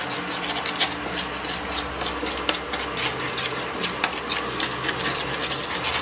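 A spatula scraping and stirring spices frying in oil in a coated pan: irregular scraping strokes over a steady sizzle.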